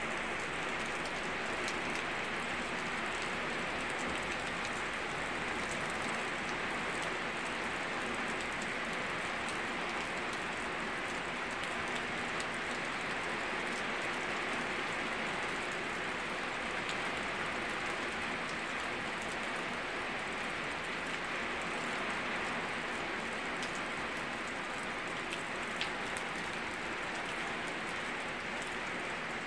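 Steady rain falling, an even hiss with scattered light drop ticks.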